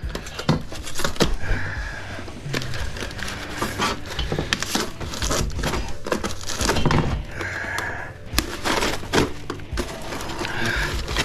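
Utility knife cutting and prying through the plastic shell and foam insulation of a water cooler, with irregular cracking and scraping and a few short squeaks as the pieces are torn apart by hand.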